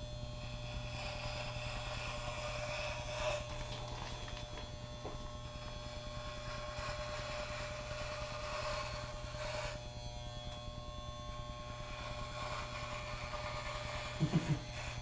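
Electric hair clippers buzzing steadily while shaving a man's head down to a buzz cut.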